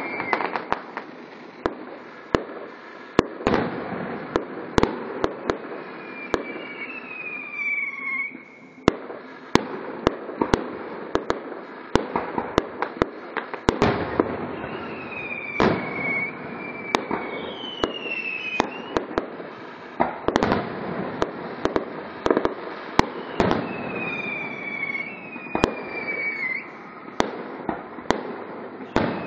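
Aerial fireworks display: a dense, irregular run of bangs and crackling from bursting shells. Whistles falling in pitch cut through several times.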